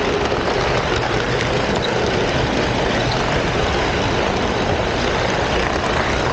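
Model train running along its track, heard from a camera car riding in the train: a steady rolling rumble of wheels on rail with the drone of its motor.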